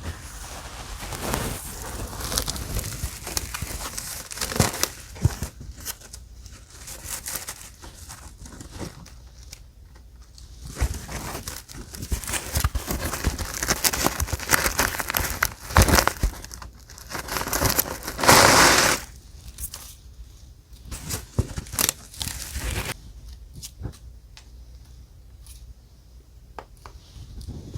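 Paper being handled: die-cut paper pieces and journal pages rustling and crinkling, with short clicks and taps. A longer, louder rustle comes about two-thirds of the way through, then the handling turns sparse and quiet.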